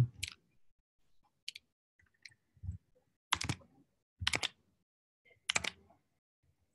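Faint, scattered clicks of a computer mouse and keyboard: about seven single strokes spread unevenly, the three loudest coming roughly a second apart in the second half.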